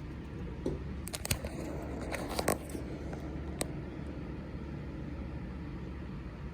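A smoke detector being handled: a cluster of short clicks and rustles about a second in, another around two and a half seconds, and a single click a little later, over a steady low hum.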